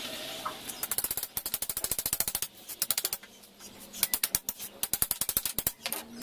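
A ratchet mechanism clicking rapidly and evenly, about ten clicks a second, in two runs of a second and a half or so with a pause between.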